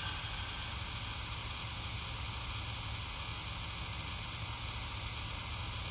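Steady hiss with a low rumble beneath it, unchanging and with no distinct events.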